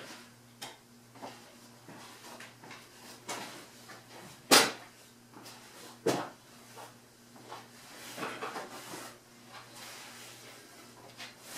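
A low, steady hum with scattered light clicks and knocks. A sharp knock about four and a half seconds in is the loudest, with another about a second and a half later.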